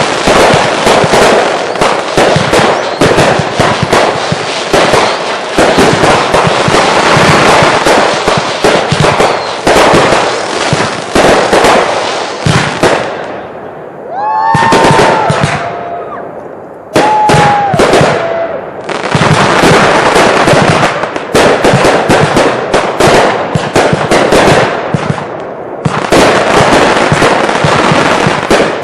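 Consumer fireworks finale: a dense, rapid run of bangs and crackling, loud and nearly continuous. About halfway there is a short lull with a few brief gliding tones, then the barrage picks up again.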